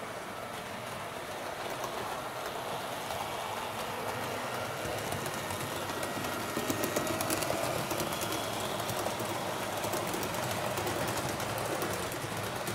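HO-scale Roco model of an NS 1100 electric locomotive and its passenger coaches running along model railway track: a steady rolling rumble of small wheels on rail with a rapid light clicking, growing louder as the train comes past and loudest about six to eight seconds in.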